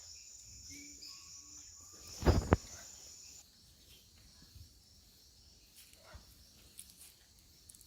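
Steady high-pitched insect drone of rainforest crickets or cicadas. About three and a half seconds in it drops to a lower, fainter pitch. Near the middle come two loud knocks close together.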